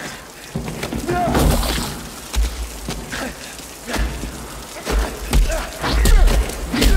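Movie fight-scene sound: a series of heavy punch and body-impact thuds landing every second or so, with grunts and strained shouts from the fighters between the blows.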